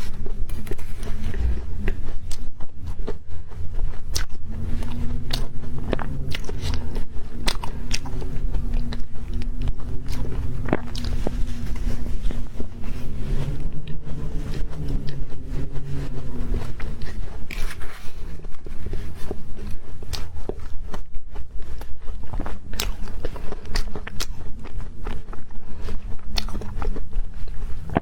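Close-miked eating ASMR: repeated crunching bites and chewing of matcha-powdered frozen ice and crunchy candy. The sharp crunches come at an irregular pace throughout.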